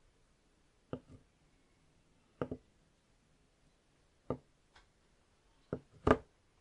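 Solid objects being set down on a tabletop one after another: a series of short knocks, some with a quick second tap as the object settles. The loudest knock comes near the end.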